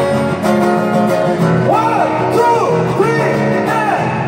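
Live acoustic guitar strummed through a PA, with singing coming in about two seconds in.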